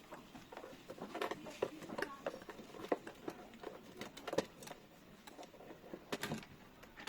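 Light, irregular clicks and taps of metal and plastic lock parts being handled and fitted together by hand.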